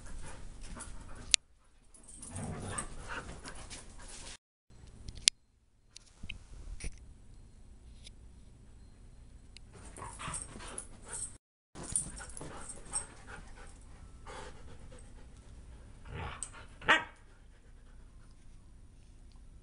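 Huskies playing rough together: dog sounds and irregular bursts of scuffling, with one short, loud, sharp sound near the end.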